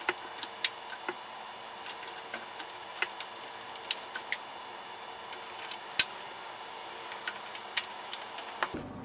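Small, irregular metallic clicks and taps of a screwdriver driving the mounting screws into a computer power supply through the back of the case. A faint steady hum runs underneath.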